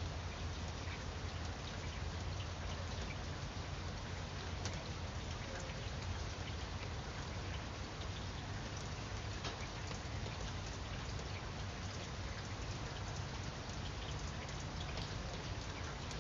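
Steady rain falling, with single drops tapping out sharply here and there above the even hiss.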